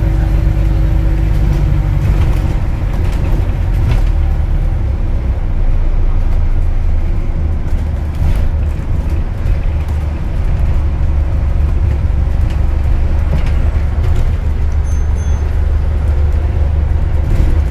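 Alexander Dennis Enviro400H MMC diesel-electric hybrid double-decker bus on the move, heard from the lower deck: a steady low drone of the drivetrain mixed with road noise.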